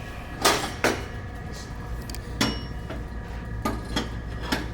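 Small hard parts clinking and knocking as they are picked up and handled on a shelf, about six sharp clicks, some with a brief ring, over a steady low hum.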